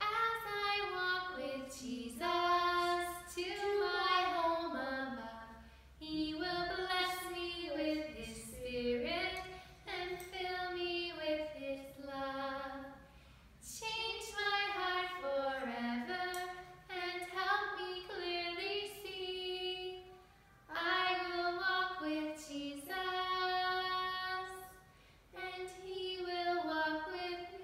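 A woman and a boy singing a children's Primary song together, without accompaniment, in phrases a few seconds long with short breaths between them.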